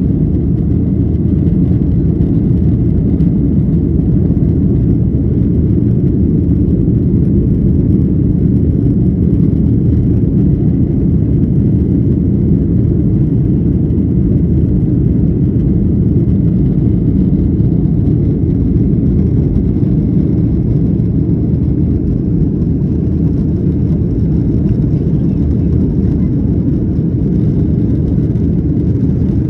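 Steady low rumble of a jet airliner's engines and airflow heard inside the passenger cabin during takeoff, with a faint high whine running through it.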